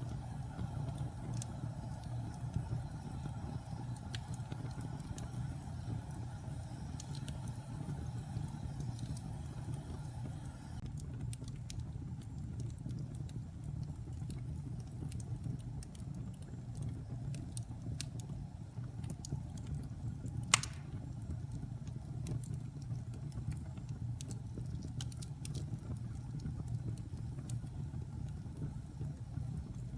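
Wood fire burning in a fireplace: a steady low rumble of flames with scattered small crackles, and one louder pop about two-thirds of the way through.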